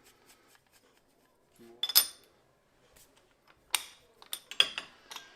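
Small metal parts and tools clinking and knocking as a switch is taken apart by hand: a few sharp strikes with a brief metallic ring, one about two seconds in and a cluster near the end.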